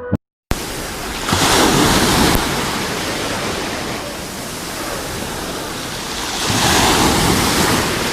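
Sea waves washing ashore in a steady rush, swelling as a wave breaks about a second in and again near the end. A short click and a half-second gap come just before the surf starts.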